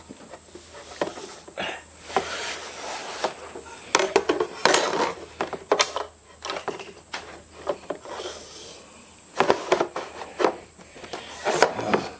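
A marker pen drawn in several short scratching strokes across an LCD monitor's screen along a steel square, with the square shifted between strokes. A steady high insect drone runs underneath.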